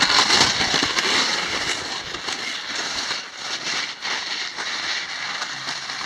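Wide hunting skis sliding over a hard, icy snow crust, a dense crackling and scraping.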